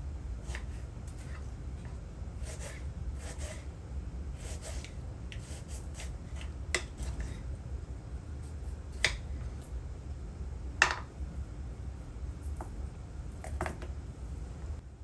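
Small household handling sounds, scattered soft clicks and rustles over a steady low hum, with three sharper clicks about seven, nine and eleven seconds in.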